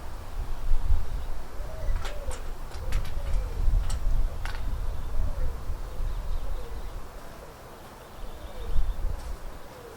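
A pigeon cooing over and over in short arched coos, under a loud, uneven low rumble of wind buffeting the microphone. A few sharp clicks come between about two and four and a half seconds in.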